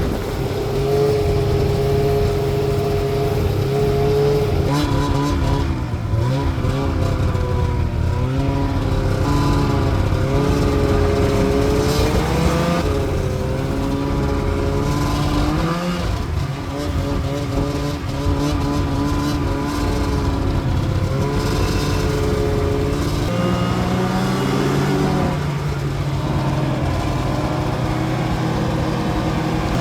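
Arctic Cat two-stroke snowmobile engine running under way on a trail, its revs rising and falling again and again as the throttle is worked.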